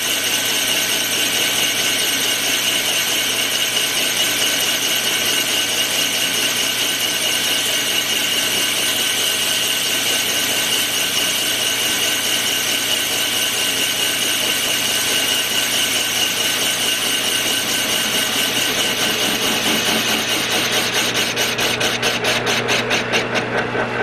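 Metal lathe running with a hand tool, apparently a file, held against the face of a spinning locomotive wheel, making a steady scraping, grinding noise. Near the end the sound turns into a fast, regular pulsing.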